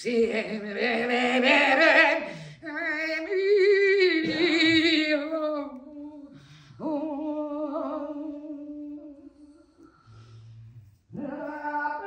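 A woman's voice singing wordless, unaccompanied long held notes with a wavering vibrato, in several phrases broken by short pauses.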